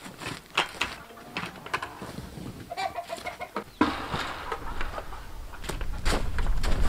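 Chickens clucking, among scattered knocks, with a sudden rush of sawdust poured from a plastic bucket about four seconds in; a rustling noise builds near the end.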